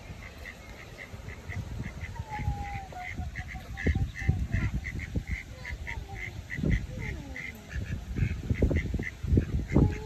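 Mallard ducklings peeping in a quick, even series of short calls, about three a second, with a few longer falling peeps among them. Low rumbling on the microphone, loudest in the second half.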